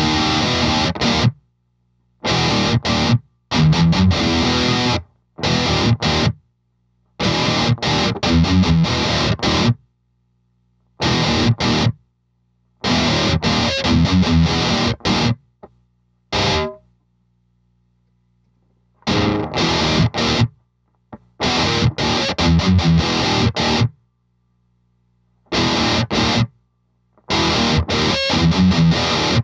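Heavily distorted electric guitar played through an overdrive pedal into a tube amp: chugging metal riffs in short phrases that stop dead, with brief silent gaps between them.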